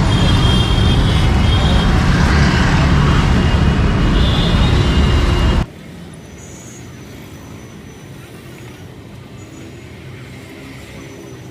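Loud road traffic rumble from the street. A little over halfway through it cuts off abruptly to a much quieter background with faint, short high-pitched tones.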